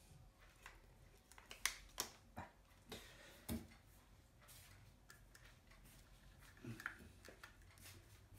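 Faint handling noise of a subwoofer foot being pushed into place on the cabinet's base: scattered light clicks and taps, the loudest about one and a half and three and a half seconds in.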